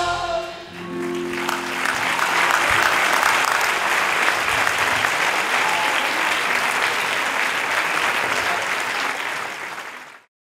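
A choir's last sung chord dies away, then an audience applauds, the applause fading and cutting off suddenly near the end.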